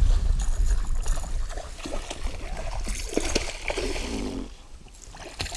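Water splashing as a hooked smallmouth bass thrashes at the surface beside the boat. Wind rumbles on the microphone in the first second.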